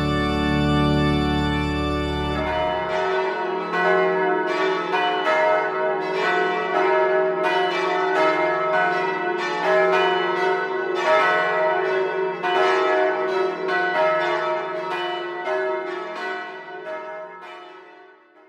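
A held chord on the Georg Westenfelder pipe organ (1997) ends about two seconds in, and church bells take over: a peal of overlapping strikes, each ringing on, that dies away near the end.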